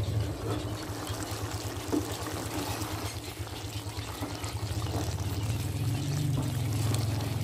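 Chicken aloo gobi curry bubbling in an aluminium pot as a wooden spoon stirs it, with a few light knocks of the spoon, over the steady low rumble of the gas burner.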